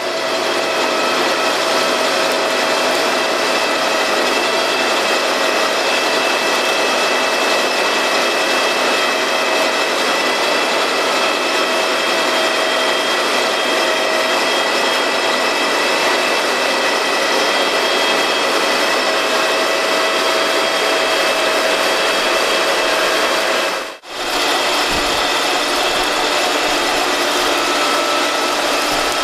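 Tolmac MT-12 front-mounted potato lifter running: the sieving web chains and rollers carry soil and potatoes in a steady mechanical clatter and rasp, over a constant whine of several pitches from the drive. The sound drops out briefly about five seconds before the end.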